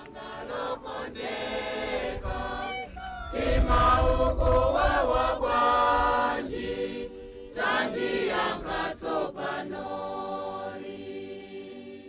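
A choir singing, with several voices holding long notes; it grows louder about three seconds in.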